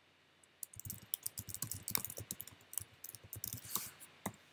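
Computer keyboard typing: a quick run of keystrokes starting about half a second in and stopping shortly before the end.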